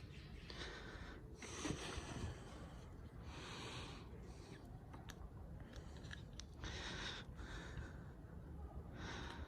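Faint breaths close to the microphone, several soft swells a second or two apart, with a single light click about five seconds in.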